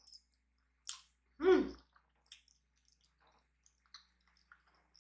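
Spicy ramen noodles slurped in, then chewed with small wet mouth clicks and smacks. About a second and a half in there is one brief, loud vocal sound from the eater.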